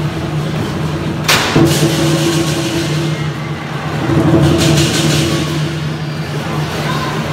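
Chinese war drums played in a fast continuous roll that merges into a steady low rumble. A cymbal crash comes about a second in, and another cymbal burst comes around four and a half seconds.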